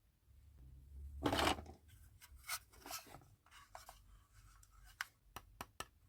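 Packaging being handled while unboxing: a louder rustling scrape about a second in, then a run of short rustles and light clicks, with a few sharp clicks near the end.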